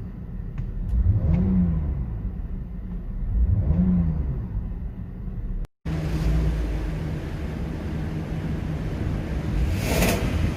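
Stock BMW 530i E60's 3.0-litre straight-six being blipped twice, the engine note rising and falling each time, then after a brief cut running steadily, with a short rushing noise near the end.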